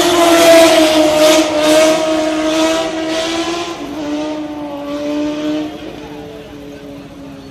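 Motorcycle engine held at high revs in one steady high note as it passes. The pitch drops a step about four seconds in and the sound gradually fades.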